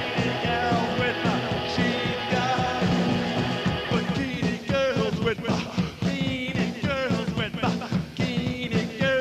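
A live psychobilly rock band playing with a steady drum beat. A man sings over it, his voice coming through more strongly from about halfway.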